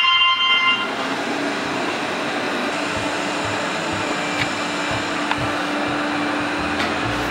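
Robot vacuum cleaner switched on: a short electronic start-up chime, then its motor running with a steady hum and a low steady tone, with a few faint clicks.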